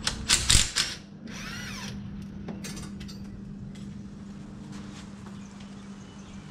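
Power tool run in a few short bursts, spinning out the bolt that holds a ground strap to the engine, followed by a few sharp metal clicks.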